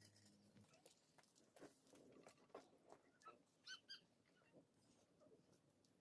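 Near silence, with faint scattered ticks and a brief faint high squeak or chirp.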